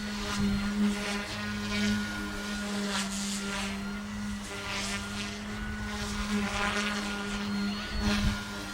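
Omphobby M1 electric RC helicopter in flight: a steady hum from its motor and spinning rotors, with airy swishes that come and go.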